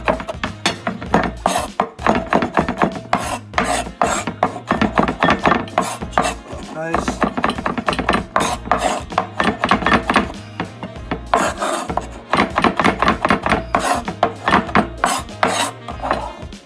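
Fresh rosemary being chopped fine with a steel cleaver on a wooden cutting board: rapid knocks of the blade on the board, several a second, with a short pause about seven seconds in.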